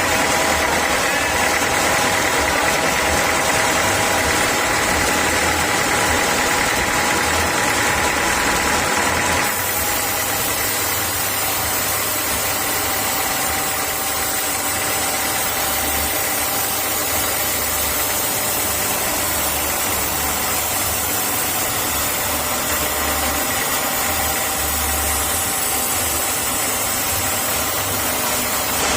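Sawmill machinery running steadily, a loud even mechanical noise with a constant whine over it; the sound changes abruptly about nine seconds in.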